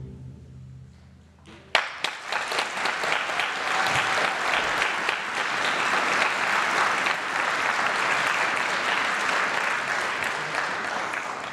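The last chord of a string orchestra dies away in the hall, then audience applause breaks out suddenly just under two seconds in and carries on, easing off near the end.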